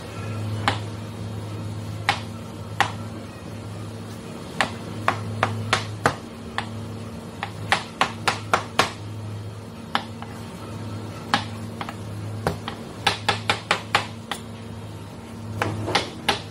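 A long knife cutting through a peeled watermelon, the blade striking the cutting board in sharp clicks, some single and some in quick runs. A steady low hum runs underneath.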